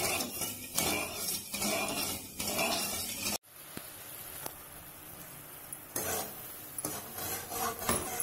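Wooden spatula scraping and stirring sugar and water in a metal kadai, in repeated strokes, about two a second. About three seconds in it cuts off suddenly to the quieter, steady hiss of the sugar syrup bubbling on high flame. A few stirring scrapes return near the end.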